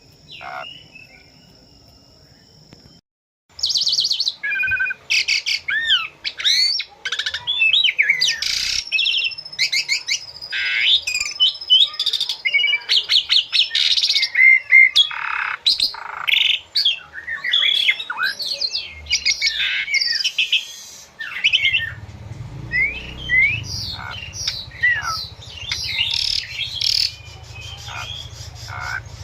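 Asian pied myna singing a long, busy song of varied whistles, rising and falling sweeps, harsh rasps and clicks, starting after about three quiet seconds. A low steady rumble joins in about two-thirds of the way through.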